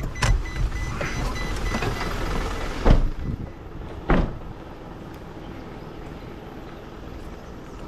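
Bin lorry running, heard first from the cab, then two sharp knocks about three and four seconds in as the cab door opens and shuts. After that, steady rain and the idling lorry, quieter.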